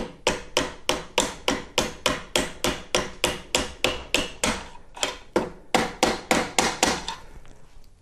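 Small mallet tapping a metal punch to drive the pedal pin into an electric unicycle's pedal mount, a steady run of sharp taps about three or four a second. There is a short break about five seconds in, and the taps stop about a second before the end as the pin bottoms out and will go no further.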